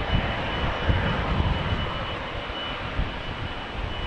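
Boeing 747-400 on final approach, its four jet engines giving a steady rushing roar with a thin high whine over it. Gusty wind buffets the microphone underneath in irregular low rumbles.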